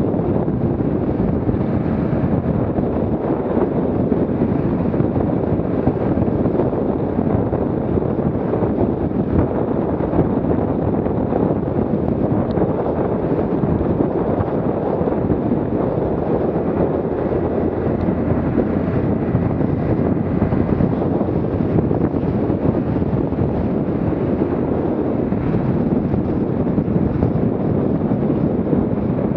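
Steady wind rushing over the microphone of a motorboat running at about nine knots, mixed with the boat's motor and water rushing along its hull through the chop.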